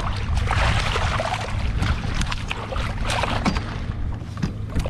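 Wind rumbling on the microphone and water splashing against a kayak in rough chop, with scattered small knocks.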